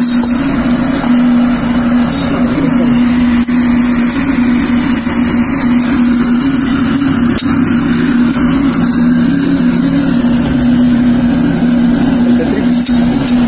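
Small electric blower running steadily, forcing air into a charcoal melting furnace: a constant hum over a rushing of air. A few sharp clicks sound over it.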